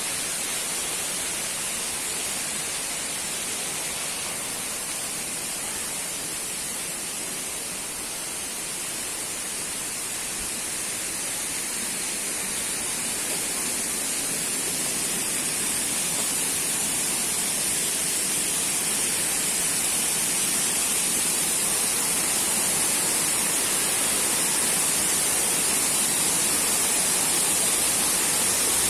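Waterfall rushing, a steady even rush of falling water, growing a little louder after about eight seconds.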